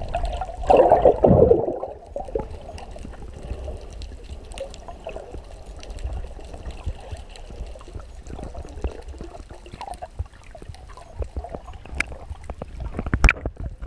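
Sea water sloshing around a camera at the surface, with a loud rush in the first two seconds, then a muffled underwater hiss with scattered small clicks and pops. A few sharp clicks come near the end.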